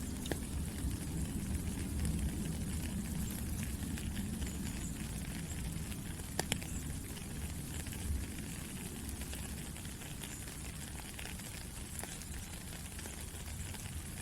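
Steady rain falling: an even hiss over a low rumble, with a few sharper drop ticks, the clearest about six and a half seconds in.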